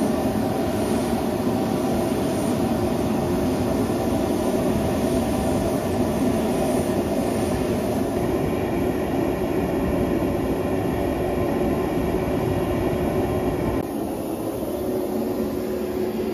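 Steady rumble and high whine of aircraft turbine noise around a parked Embraer KC-390 Millennium military transport, dropping somewhat in level about 14 seconds in.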